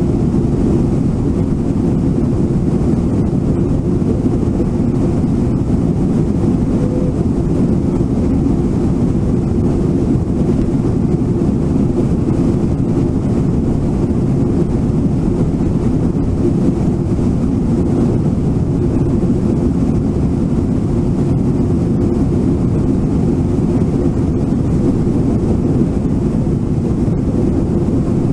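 The waterfall and rapids of Brooks Falls make a steady rush of whitewater, a deep, even rumble with no breaks.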